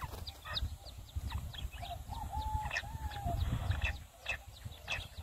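Jungle bush quail calling: a rapid run of short, high, down-slurred chirps. A brief wavering lower whistle comes about two seconds in, and a low rumble runs underneath.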